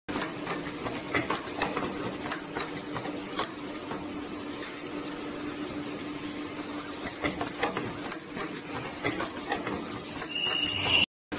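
Semi-automatic ultrasonic ear-loop welding machine for KN95 masks running: a steady hum with frequent clicks and knocks from the machine and the masks being handled. Near the end comes a short high whine from the ultrasonic welding.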